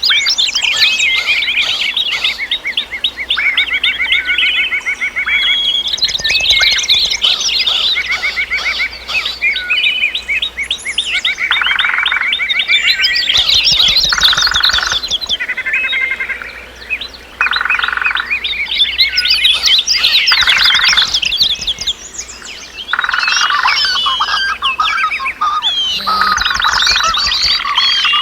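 A dense chorus of several birds chirping and singing, with quick overlapping trills. A lower, rattling trill of about a second keeps repeating every two to three seconds.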